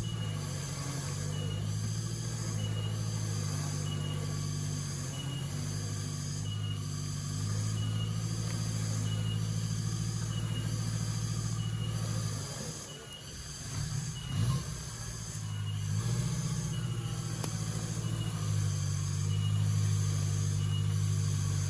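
Off-road 4x4 engine running with a steady low drone, easing briefly about two-thirds of the way through before picking up again, with a short knock just after. A regular high-pitched pulse repeats about every second and a half over it.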